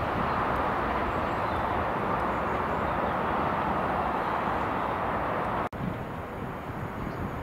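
Diesel freight locomotive running along the line away from the listener, a steady loud rush of rail and engine noise over a low rumble. It cuts off suddenly near the end, giving way to a quieter, more distant train approaching.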